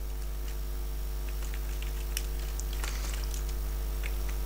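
Computer keyboard typing: scattered soft key clicks, thickest around the middle, over a steady low hum.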